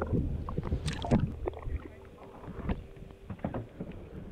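Water splashing and knocking against a boat's side in short, irregular splashes, over a low rumble that fades out about two seconds in.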